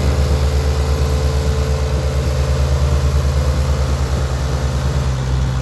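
Fiat 480 tractors' three-cylinder diesel engines running hard under full load while chained back to back in a tug-of-war pull. A loud, steady, low drone with an even pulse.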